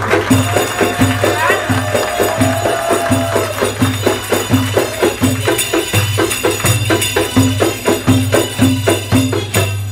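Live Egyptian folk music: hand frame drums beat a steady rhythm of about two strokes a second, with tambourine jingles over them. A long held note sounds over the first few seconds.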